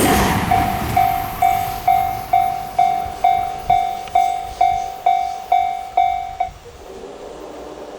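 A train passing a Japanese railway level crossing, its noise fading away within the first second, while the crossing's warning bell rings at about two strikes a second, each ring dying away. The bell stops about six and a half seconds in, as the crossing clears after the train.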